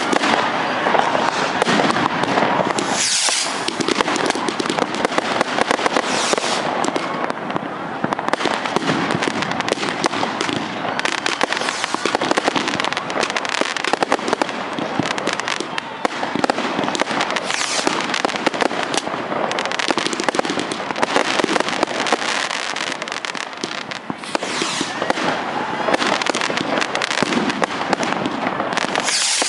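Massed fireworks: many bangs and crackles overlapping without a break, a dense continuous barrage.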